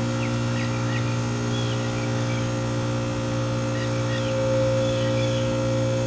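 American Standard heat pump running steadily in its defrost cycle, the compressor giving a loud, even hum with a low drone and several steady higher tones while the outdoor fan stands still. Faint bird chirps come now and then over the hum.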